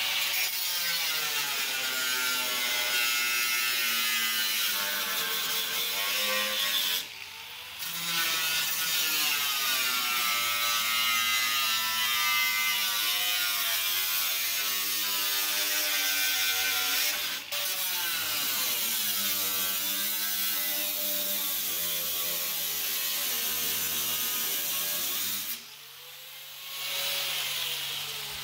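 Small cut-off wheel grinder cutting through the steel sheet metal of a 1978 Ford F-150 cab corner: a loud whine over a hiss of grinding, its pitch sagging and recovering as the wheel bites into the metal. It lets off briefly about seven seconds in and again near the end, winding back up in between.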